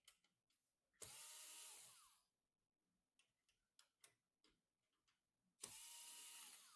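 A small electric motor, of the kind in a handheld power tool, runs in two bursts of about a second each, some four and a half seconds apart, its pitch dropping as each burst ends. Light clicks of handling come between the bursts.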